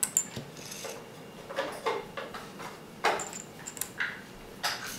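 Small plastic Lego pieces clicking and tapping: a scattering of light, irregular clicks as tiny parts are picked up and pressed onto a plate.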